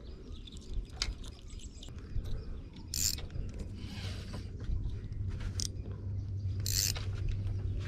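Shimano Twin Power spinning reel being cranked, its gears turning as a lure is retrieved. There are two short sharp hisses, about three seconds in and near the end, and a low steady hum builds in the second half.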